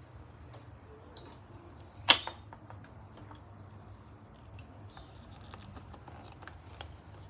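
Hand handling of small hard parts: scattered light clicks and taps, with one sharp loud click about two seconds in.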